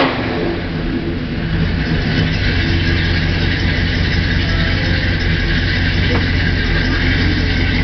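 1968 Ford F100's 360 cubic-inch FE big-block V8 idling steadily through headers and Flowmaster Super 40 mufflers, the engine still cold. The exhaust echoes in the enclosed garage.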